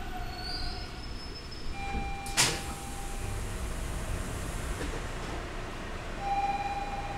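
Bombardier T-1 subway train standing at a station platform with its equipment humming steadily. A single sharp knock comes about two and a half seconds in, and near the end a steady chime tone begins.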